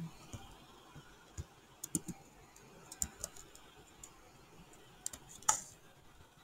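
Scattered keystrokes on a computer keyboard: a few faint, irregular clicks, with a louder one near the end.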